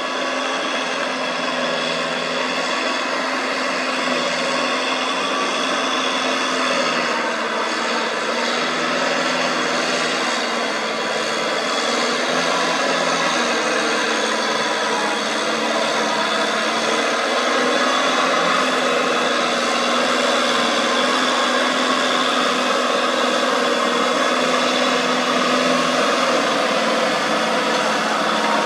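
Tractor engine running steadily under load, its note wavering slightly in pitch and growing a little louder in the second half.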